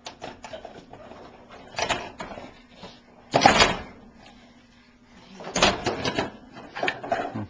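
Dishes clattering and knocking as a dishwasher is unloaded by hand, in several short bursts, the loudest about three and a half seconds in and another around six seconds in.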